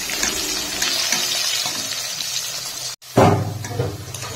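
Potato wedges sizzling in hot mustard oil in a metal wok, a steady hiss. About three seconds in the sound breaks off briefly, then comes back louder as a spatula turns the potatoes, before fading.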